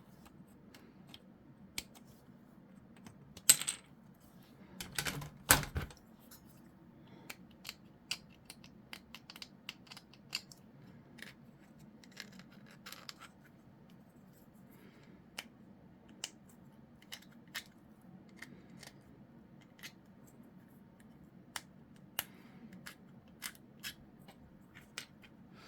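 Sprue cutters snipping plastic miniature parts off the sprue, with scattered small clicks of plastic pieces being handled; two louder sharp snaps come about three and a half and five and a half seconds in.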